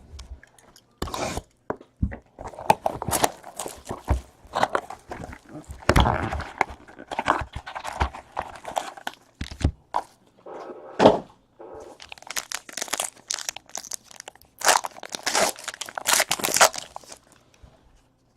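Trading-card pack wrappers being torn open and crinkled, with cards being handled and shuffled: irregular rustling and crackling broken by short sharp clicks.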